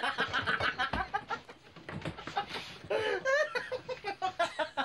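Men laughing together, a quick run of ha-ha pulses that eases off briefly about two seconds in and then picks up again.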